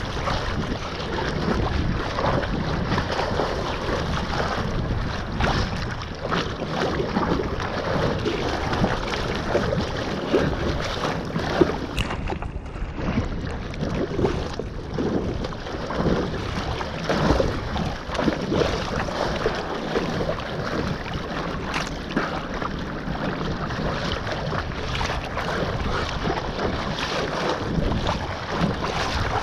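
Choppy sea water sloshing and splashing right at the microphone as the camera rides the surface, with wind buffeting the mic. The sound goes briefly muffled about twelve seconds in.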